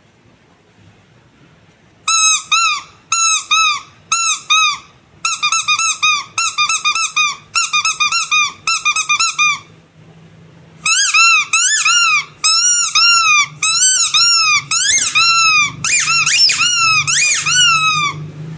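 Squeaky rubber animal toys squeezed over and over, each squeeze a short squeak that rises and falls in pitch. The squeaks start about two seconds in, come in quick groups, stop briefly around the middle, then return faster and closer together.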